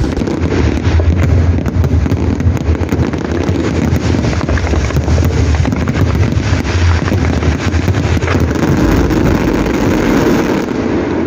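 Dense barrage of aerial fireworks: rapid crackling cracks over a continuous low rumble of bursts.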